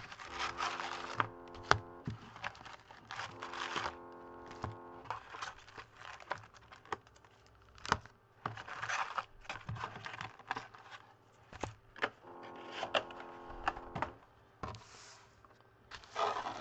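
A sealed box of 2014 Topps Series 1 baseball card packs being unwrapped and opened: plastic wrap crinkling and tearing, and cardboard and packs handled with scattered clicks and taps. Three short steady tones come through as well.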